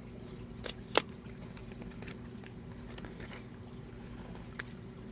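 Small objects being handled: two sharp clicks about a second in, the second one louder, and a faint click near the end, typical of a mascara tube and its packaging being picked up and set down. A steady low hum underneath.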